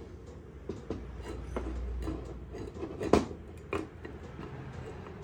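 Metal parts of a cross vice being handled on the bench: a few scattered metallic clicks and knocks, the sharpest about three seconds in.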